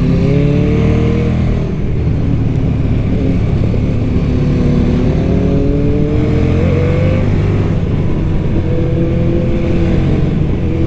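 KTM 1290 Super Duke R's V-twin on its stock exhaust, pulling away and accelerating. The engine note rises, dips about two seconds in, climbs slowly again over several seconds, then holds steady near the end.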